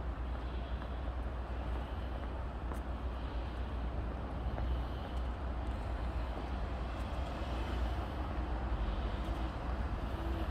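Steady outdoor street background noise with a strong low rumble.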